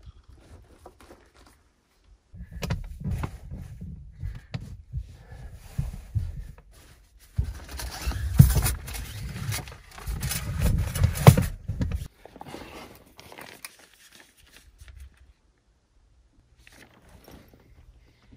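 Knocks, thumps and rustling of fabric and bedding as a person moves around on the floor of a hard-shell rooftop tent, with a low rumble from the tent platform. The activity comes in two spells, and there are two sharp knocks in the second.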